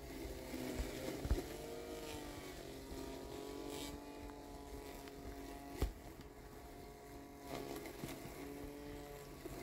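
Landxcape LX790 robotic lawn mower's electric motors whining, the pitch drifting up and down as it pushes through tall weeds and turns, with a couple of sharp knocks.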